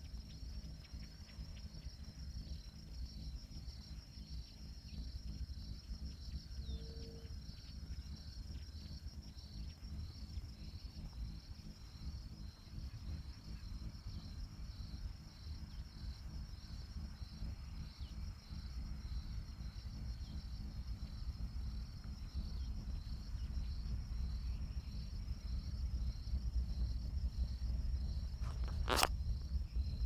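Insects chirping steadily in a fast, even pulse, over a low rumble on the microphone. A single sharp click near the end.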